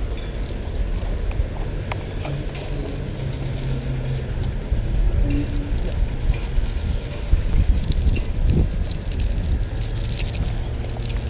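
Steady low rumble of road traffic, with a scatter of short clicks and ticks in the later part.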